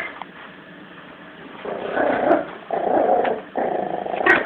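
Yorkshire terrier puppy play-growling while tugging at a toy: three long growls in a row, starting about a second and a half in.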